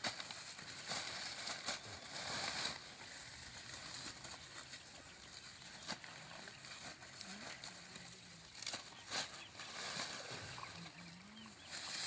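Dry corn husks rustling and crackling as ears of corn are husked by hand, with scattered sharp crackles.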